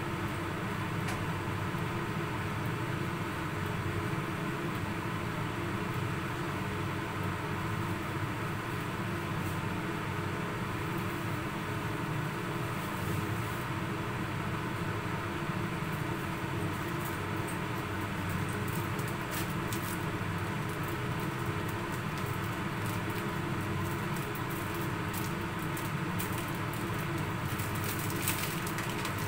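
Steady whirring hum of kitchen machinery. Faint scattered crackling from the frying pan of clams joins it from about halfway through.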